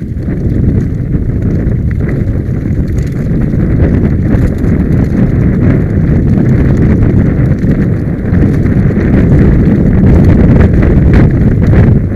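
Mountain bike rattling down a loose, rocky trail: a steady, loud rumble and clatter of tyres and bike over stones, with many small knocks, and wind buffeting the camera microphone.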